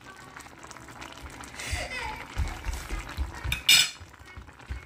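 Utensils clinking and knocking against a pot and dishes: a few soft knocks, then one sharp clink about three and a half seconds in.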